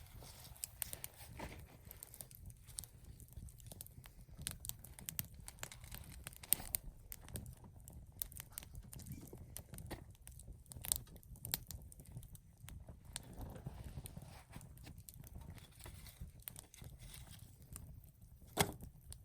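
Wood campfire crackling: irregular sharp pops and snaps, one louder pop near the end, over a low steady rumble.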